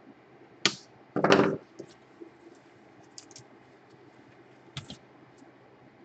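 Handling noise from an opened laptop being worked on by hand: a sharp click just over half a second in, a louder rustling knock about a second later, then a few light clicks, a double one near the end.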